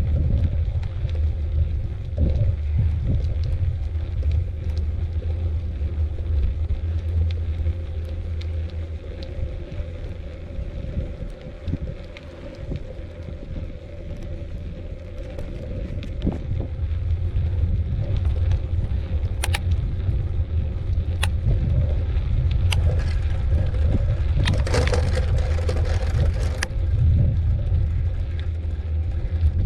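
Ride noise of a mountain bike rolling along a dirt trail: a steady low rumble of wind and tyre noise on the camera, with scattered clicks and rattles from the bike. The rumble eases for a few seconds near the middle, and the clicks come more often in the last third.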